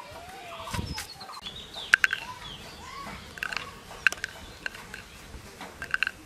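Short sharp bird chirps repeating every second or so, often in pairs, with a few gliding fowl calls about a second in, over faint outdoor background noise.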